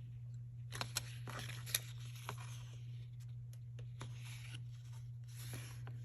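Washi tape samples and their packaging being handled: light rustling with a few sharp clicks in the first couple of seconds, over a steady low hum.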